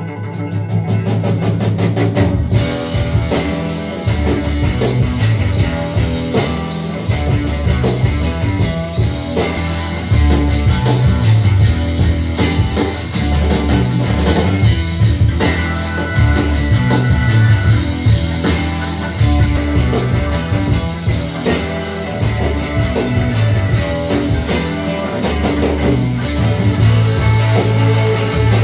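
Instrumental rock music with guitar, bass and drum kit, with no vocals, played back through a hi-fi amplifier and speakers for a sound test.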